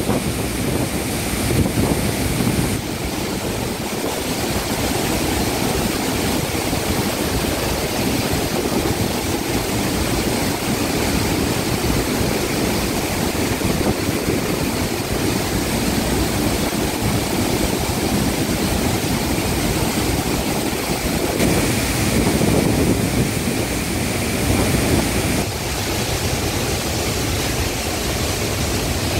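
Muddy floodwater pouring over a waterfall in a flash flood: a loud, steady roar of rushing water.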